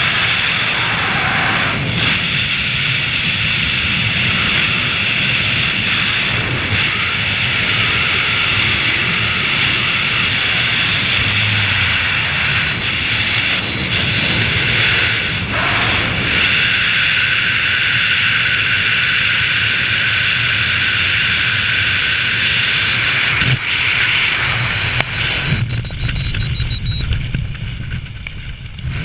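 Freefall wind rushing over a helmet-mounted camera's microphone, a loud steady rush. Near the end it drops away and turns fluttery and buffeting as the parachute opens.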